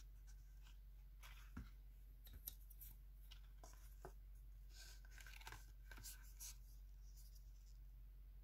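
Faint handling noise: scattered light clicks, taps and rustles as hands move a rubber slide sandal and a steel ruler, over a steady low hum.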